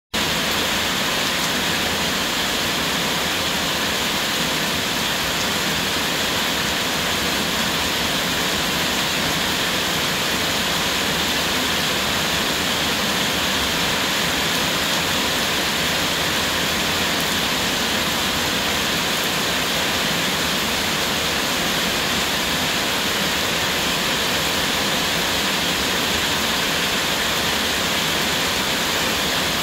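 Heavy rain pouring down steadily as an even, unbroken hiss.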